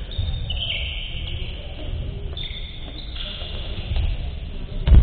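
A basketball bounces once on a wooden gym floor near the end, a single sharp thump over a steady low hall rumble. Faint high steady tones, shifting between a few pitches, sound throughout.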